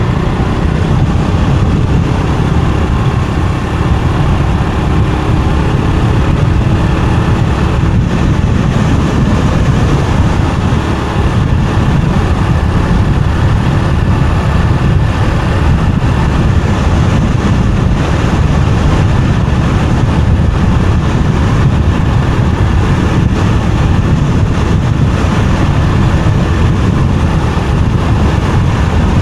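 Motorbike on the move at road speed: a steady, dense low rumble of engine, wind and road noise that does not let up.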